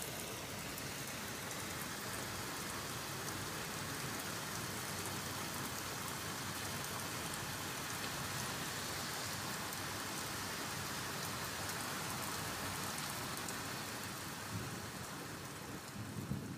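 A steady, even hiss like rain, easing off over the last couple of seconds.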